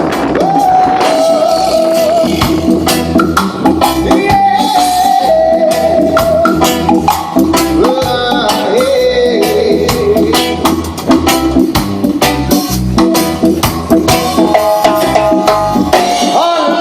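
Live band playing at full volume: a drum kit and percussion keep a steady beat under a sung or lead melody line.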